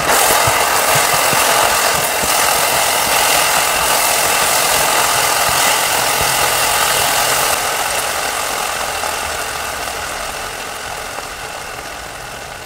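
Chicken and shredded ginger sizzling and bubbling in an electric pan as a silicone spatula stirs them, with soft knocks of the spatula in the first couple of seconds. The sizzle fades gradually over the second half.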